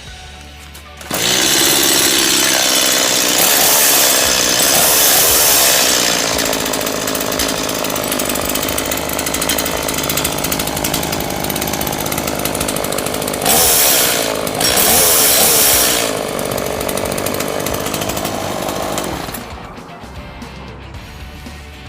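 Small chainsaw engine starting up about a second in, its pitch rising, then running and getting louder twice before cutting off near the end.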